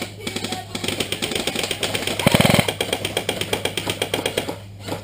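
Airsoft guns firing: a fast, steady patter of shots, with a louder short full-auto burst about two and a half seconds in.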